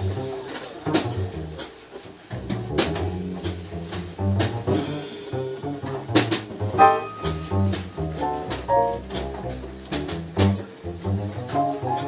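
Live small-group jazz: upright double bass plucking a moving bass line under piano, with regular sharp hits keeping time.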